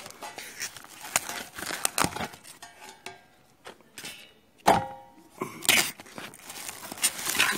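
Plastic film of a meat pack crinkling and tearing as it is peeled open and the meat pulled out. About two-thirds of the way through, a louder knock with a short metallic ring from a stainless steel bowl.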